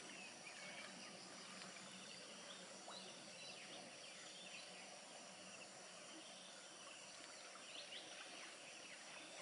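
Near-silent rural ambience: a faint steady hiss with a few scattered, thin, high bird chirps.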